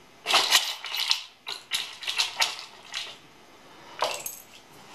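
Small hard 3D-printed plastic parts clicking and clattering against each other and a plastic tub as a hand rummages through them. There is a quick run of clatters over the first three seconds and one more about four seconds in.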